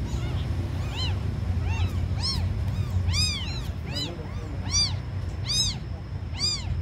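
Newborn kittens mewing: a string of short, high-pitched cries that rise and fall in pitch, about one or two a second, over a steady low hum.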